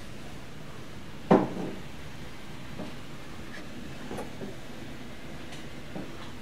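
A sharp knock about a second in, the loudest sound, followed by a few fainter knocks, over a steady hiss of room tone.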